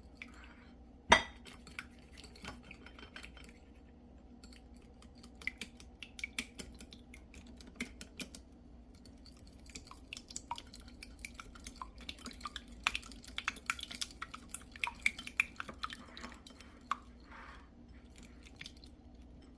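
Egg being whisked in a bowl: the utensil clicks against the bowl in quick, irregular taps, with one louder knock about a second in.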